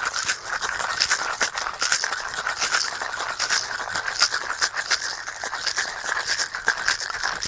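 Ice cubes rattling inside a copper-plated two-piece cocktail shaker being shaken hard to mix and chill a drink: a dense, fast, continuous rattle that stops at the very end.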